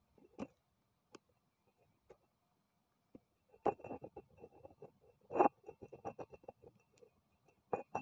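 Faint scattered clicks and scratchy rustles in a few clusters, the busiest about three and a half and five and a half seconds in, over a faint steady high tone: handling noise from the camera being shifted on the paving.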